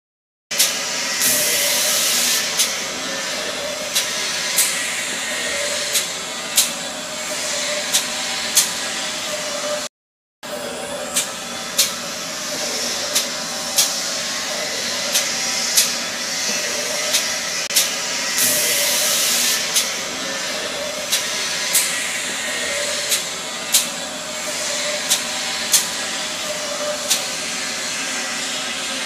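Jumbo-roll toilet paper cutting machine running: a steady whirring hum and hiss, with a sharp click about once a second. Twice a louder hiss lasts a second or two.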